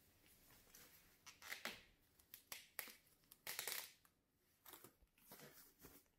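Thin plastic packaging bag crinkling and rustling in irregular bursts as hands pull it open and off the unit inside.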